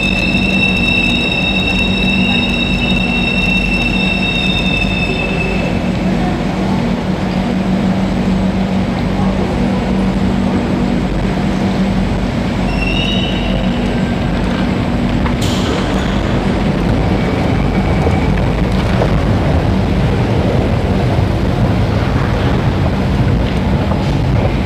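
Singapore MRT train at the platform, running with a steady rumble. A high steady whine sounds through the first few seconds, and a low hum carries on until about halfway through.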